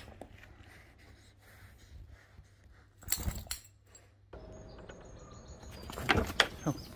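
Quiet room, then small birds chirping in a garden, with a short, louder burst of noise near the end.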